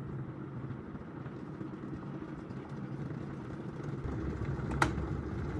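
Xiaomi electric kettle heating water: a steady low rumble that grows a little deeper towards the end, with one sharp click near the end.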